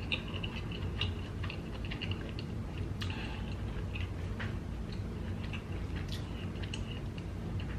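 Faint scattered clicks and soft wet squishes of close-miked eating: a king crab leg and a lemon wedge being handled over a seafood boil.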